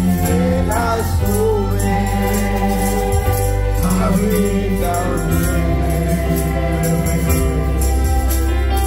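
Amplified Christian worship music: singing over sustained instruments and a deep bass line, with high percussion keeping a steady beat.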